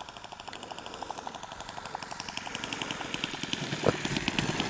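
RC scale warbird model's engine running at low throttle with a rapid pulsing beat, growing steadily louder as the plane comes in to land. A short knock about four seconds in, as the plane touches down on the grass.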